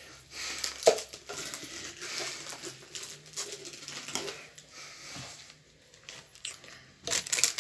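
Plastic packaging and a clear plastic jar being handled: scattered rustling, crinkling and light knocks, with a denser burst of crinkling near the end.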